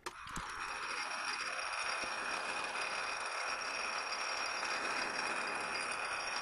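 Metal lathe switched on and running steadily with a high whine, its spindle turning a short bar of stock for a facing cut on the end.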